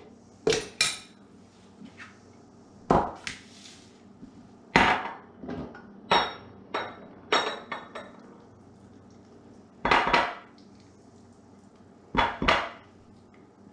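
About a dozen irregular knocks and clinks of a stainless steel measuring cup and spatula against a glass measuring cup, some in quick pairs, as mayonnaise is scraped and tapped out of the cup.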